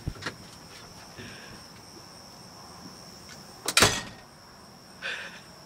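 Crickets trilling steadily at one high pitch, with a few light clicks near the start and one loud, sharp burst of noise a little under four seconds in, followed by a smaller one about a second later.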